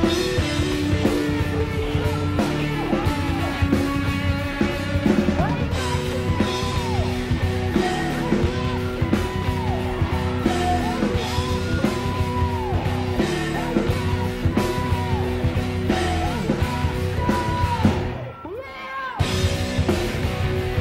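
Live rock band playing loud, with electric guitars, bass, drums and a sung vocal. About eighteen seconds in the music briefly drops away, then comes back.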